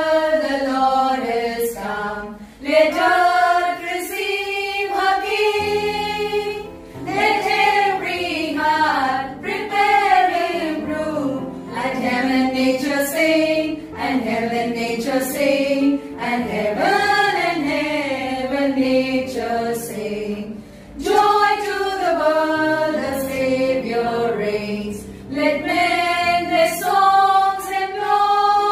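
Small choir of women singing a medley of Christmas carols together.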